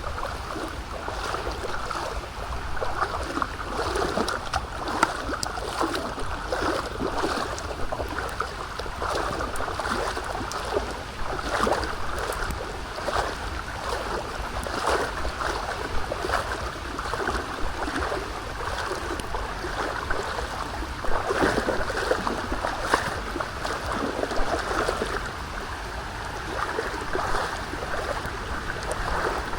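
Steady rain falling, a continuous wash of water full of small drops and splashes.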